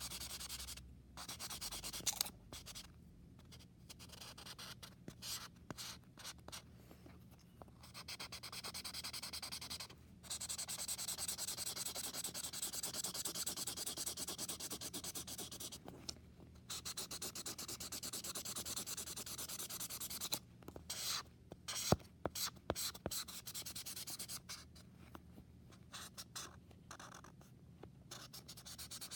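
Thick felt-tip marker scribbling back and forth on paper, colouring in an area in long stretches with short pauses between. A few sharp taps come about two-thirds of the way through.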